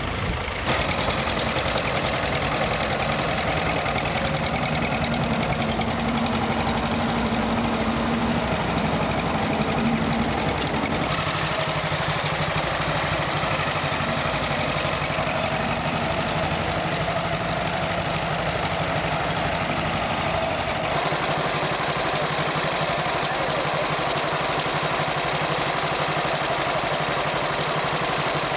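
Vintage tractor engines running steadily at low revs. The engine note changes abruptly twice, about a third and two-thirds of the way through.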